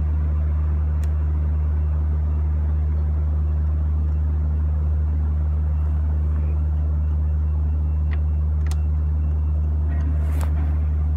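Steady low machinery hum at an even level throughout, with a few faint clicks and a short rustle near the end as hands work on the compass cover.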